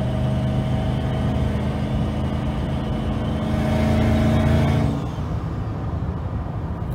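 Turbocharged Toyota Tundra 5.7L V8 heard from inside the cab while cruising, a steady engine note. About three and a half seconds in it gets louder with a rising rushing hiss, then the engine note and hiss drop suddenly about five seconds in, as if the throttle is let off.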